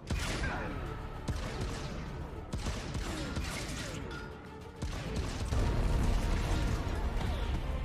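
Dramatic film score over action sound effects: a sudden loud hit at the start, crashes and crackling hits, and a deep low rumble that swells about five seconds in.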